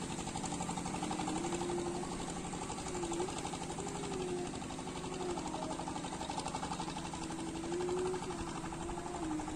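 Small boat engine running with a rapid, steady chugging, its tone wavering slightly up and down.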